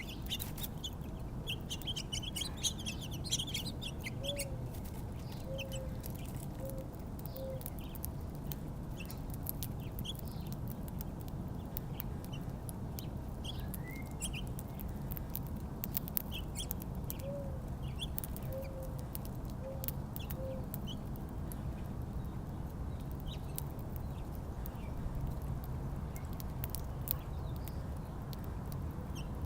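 Mourning dove cooing twice: a rising-then-falling first note followed by three shorter low coos. Small feeder birds chirp throughout, most busily in the first few seconds, over a steady low rumble.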